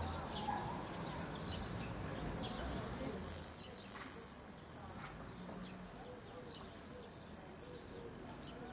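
Crickets chirping faintly in short, scattered chirps over a low steady hum.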